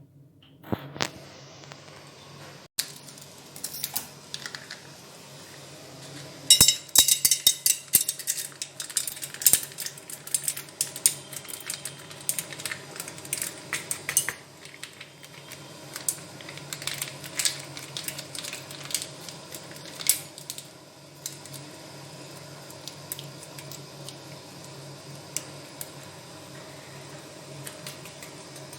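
Metal cookware and utensils clinking and rattling while popcorn is prepared. A dense burst of rapid clicking comes about six and a half seconds in, then scattered clinks follow. A steady low hum runs underneath.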